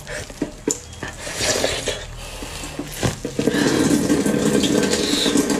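Kitchen handling sounds: a few sharp clicks and light scraping of utensils and dishes, then about three seconds in a louder, dense, continuous crackling churn sets in.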